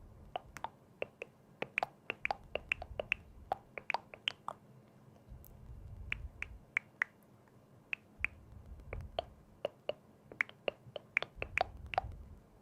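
Dozens of sharp, short clicks and taps in quick irregular clusters, over intermittent low rumbling handling noise.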